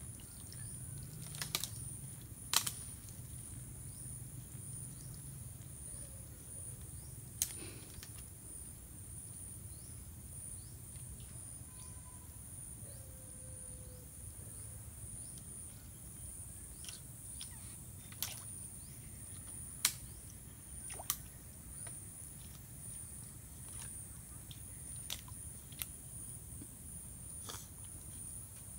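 Outdoor forest ambience: a steady high-pitched insect drone over a low rumble, broken by about ten scattered sharp clicks and snaps as hands work among twigs and shallow muddy water.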